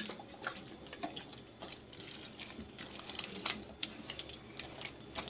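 A hand squeezing and kneading a wet batter of palm fruit pulp, grated coconut, semolina and flour in a metal bowl: irregular wet squelches and clicks, several a second.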